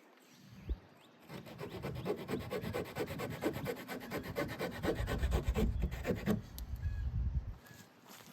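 Small folding saw blade of a Victorinox Fieldmaster Swiss Army knife sawing through a wet tulip poplar branch in quick back-and-forth rasping strokes. The strokes start about a second in and stop shortly before the end.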